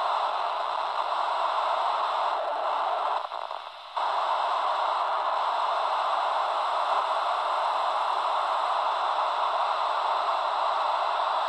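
Steady static hiss from the speaker of an Albrecht AE2990 AFS handheld CB radio as it is stepped up through empty 27 MHz channels, with no signal breaking through. The hiss drops away briefly for under a second about three seconds in.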